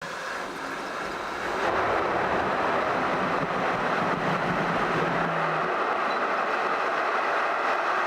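Jet airliner taking off, its engines running up to takeoff thrust: a steady rushing noise that grows louder a little under two seconds in, with a low hum underneath that fades out about halfway through.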